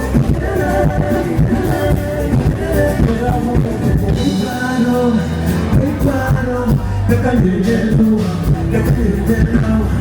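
Live band music with singing, loud and continuous.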